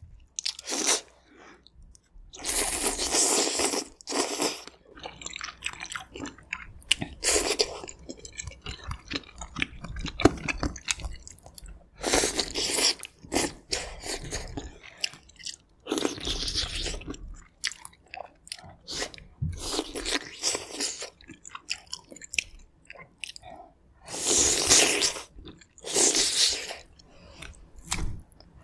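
Close-miked eating: biting and chewing soft braised aged kimchi and pork from a kimchi gamjatang, loud stretches a second or two long with short pauses between.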